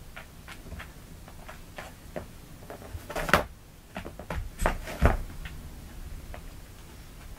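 Kittens tussling over a string toy: scattered light taps and scuffs, with two loud knocks about three and five seconds in.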